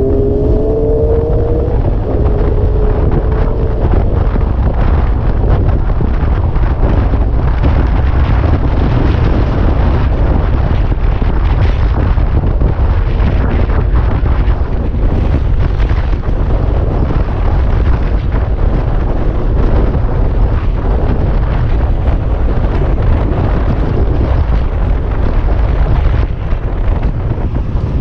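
Wind buffeting the microphone on a moving Honda scooter, a loud steady rumble. Under it the scooter's engine whine rises in pitch as it accelerates during the first two seconds.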